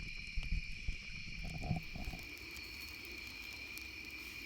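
Steady chorus of crickets and other night insects. A few low bumps come in the first two seconds.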